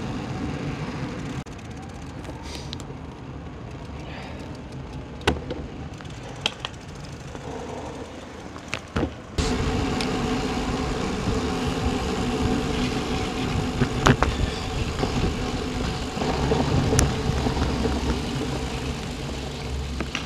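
Riding noise from a bicycle-mounted camera: a steady rush of wind and tyre rumble with city car traffic around it, broken by a few sharp knocks. About nine seconds in, the sound cuts abruptly and becomes louder.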